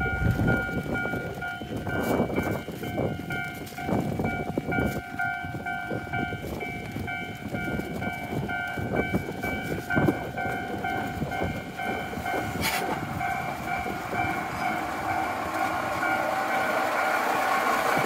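Level-crossing warning bell ringing in steady pulses while a Tsugaru Railway diesel railcar approaches; its engine and wheel noise grow louder near the end as it pulls in. Irregular low thuds run throughout.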